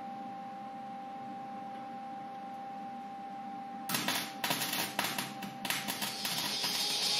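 Welder welding a metal piece onto a car body: a steady hum, then about four seconds in the arc strikes and crackles in short irregular spurts, running into a continuous sizzle near the end.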